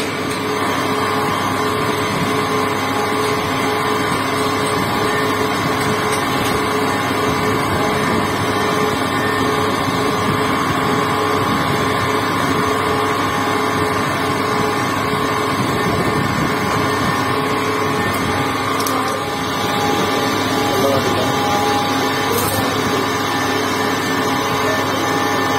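Metal lathe running, its chuck spinning while a turning tool cuts a small metal part: a steady machine hum with several steady whining tones over it.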